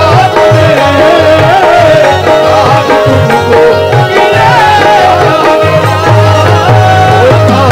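Live qawwali ensemble music: harmonium chords under a sliding, ornamented melody, driven by a steady hand-drum rhythm.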